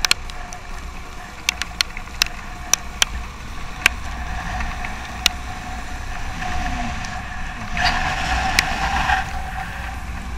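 Motorcycle ride as heard by a rider-mounted camera: steady wind rumble on the microphone over the running engine. There are several sharp ticks in the first few seconds and a louder rush of noise about eight seconds in.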